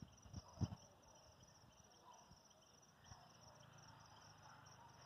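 Crickets chirring steadily and faintly, a fine pulsing high trill. Two short low thumps come within the first second.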